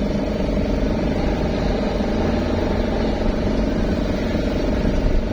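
Steady low engine and road rumble of a moving vehicle, with no horn sounding.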